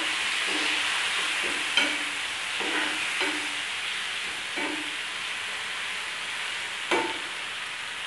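Chopped tomatoes sizzling in hot oil in a nonstick pan while a steel ladle stirs them. The ladle scrapes and knocks against the pan several times, with the loudest knock near the end.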